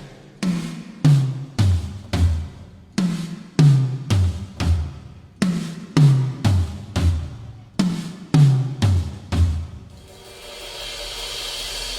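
Two drum-kit toms struck one at a time in a repeating pattern, the higher tom twice, then the lower floor tom twice, each note ringing out and dropping slightly in pitch, for a drum sound check. The hits stop about ten seconds in, leaving a steady hiss.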